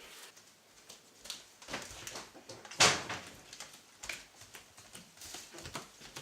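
Scattered soft knocks and rustles in a small room, with one louder sharp knock a little under three seconds in.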